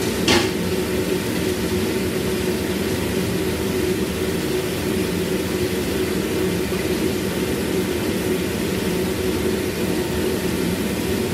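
Steady roar of a commercial kitchen's gas wok range and extraction running, with a brief clatter about a third of a second in.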